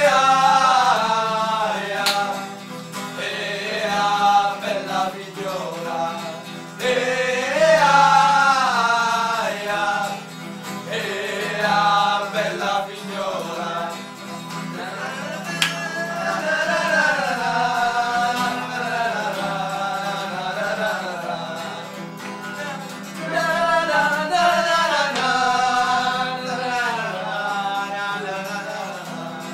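A group of men singing together in Italian to a strummed acoustic guitar, in phrases with short breaths between them.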